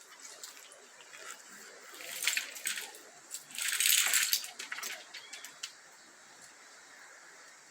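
Snoring from a sleeping boy and a dog: two raspy, hissing breaths, the second longer, with a few faint clicks between.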